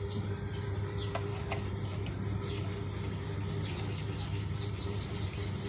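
A bird chirping in a fast run of short, high notes, about five a second, starting a little over halfway through, over a steady low hum.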